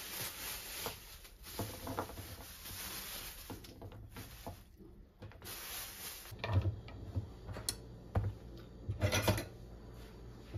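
Plastic produce bag rustling and crinkling as green beans are handled, with light knocks of things set down on a kitchen counter: a cluster about six and a half seconds in and another about nine seconds in.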